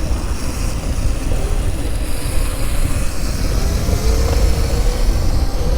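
Wind rumbling on the microphone while riding a modded Razor electric dirt bike, with the faint whine of its electric motor rising about four seconds in.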